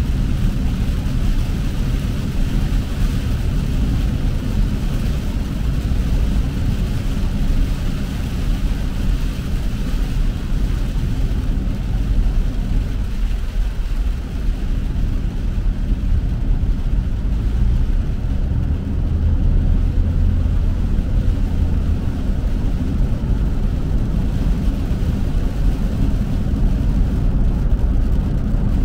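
Steady low rumble of a car driving on a wet road, heard from inside the cabin: tyre and road noise with a higher hiss of spray that eases off about halfway through.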